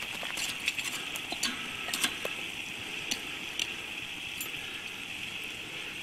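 Sharp metallic clinks and knocks of coals and the camp oven being shifted about in a campfire, a quick run of them in the first few seconds and then only a few, over a steady high hiss.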